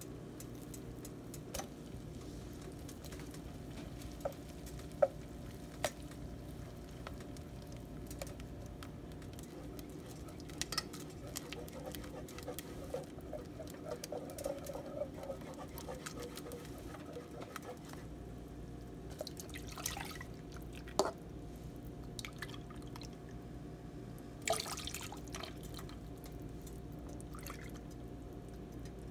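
A green silicone whisk stirring cream cheese into melted butter in a metal saucepan: wet squishing and sloshing, broken by scattered sharp taps of the whisk against the pan, over a steady low hum.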